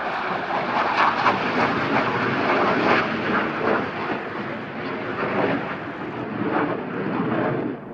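Jet fighter engine noise, a loud steady rushing roar of an aircraft in flight, that cuts off suddenly at the end.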